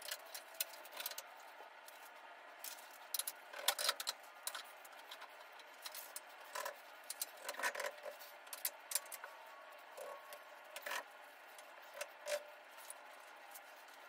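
Irregular light metallic clicks and clinks of steel tubing and a clamp being handled and set on a truck frame, with a few louder knocks scattered through.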